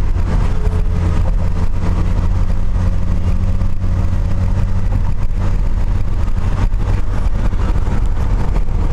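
Steady engine and road noise of a car driving at highway speed, heard inside the cabin as an even low drone.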